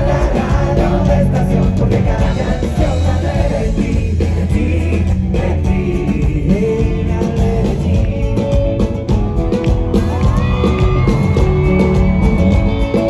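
A band playing a Latin pop-rock song with guitar and a sung vocal; near the end the singer slides up into a long held note.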